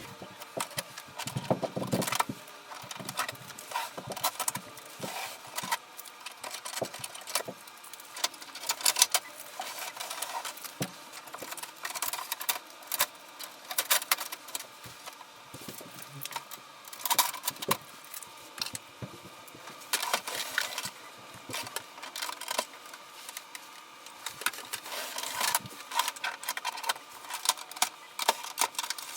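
Unpacking noises: plastic wrapping and packing material crinkling and rustling, with scattered irregular clicks and knocks as the printer is handled.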